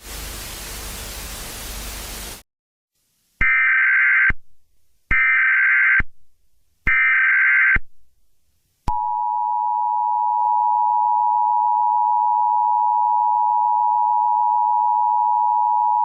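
A burst of hiss-like static for about two and a half seconds. Then three Emergency Alert System SAME header bursts, each a warbling two-tone digital squawk about a second long. About nine seconds in, the EAS attention signal starts: a steady, loud two-tone alarm.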